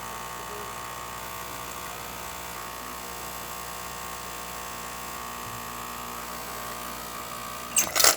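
Profitec espresso machine's pump buzzing steadily while pulling a test shot after a service, then stopping with a short loud burst of noise near the end.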